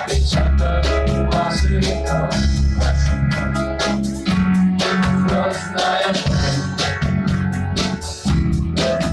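Rock band playing an instrumental passage of a cover song: electric guitar and bass guitar over a drum kit keeping a steady beat.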